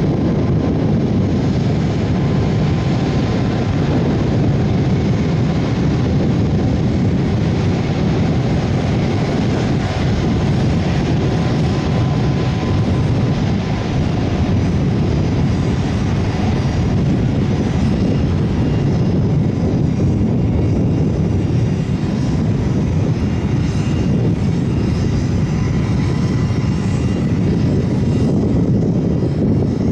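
Airbus A330 MRTT tanker's Rolls-Royce Trent 700 turbofans at taxi power: a steady low rumble with a faint high whine.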